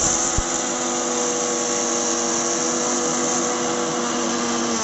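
Philips mixer grinder running at full speed, its stainless-steel jar grinding hard Pulse candies and sugar into fine powder. A steady high whine, with the candy pieces rattling against the blades in the first moment; the pitch dips slightly near the end.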